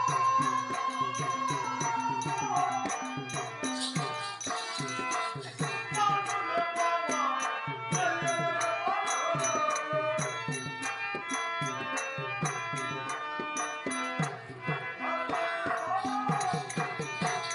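Live folk-theatre music: hand drums play a quick, steady rhythm under bright metal jingles and a wavering melody line, over steady sustained reed tones.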